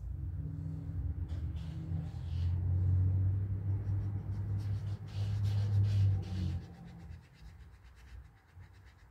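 A low rumble with a faint steady hum that holds for about six and a half seconds and then fades. Light scratchy strokes of a paintbrush on watercolour paper come and go over it.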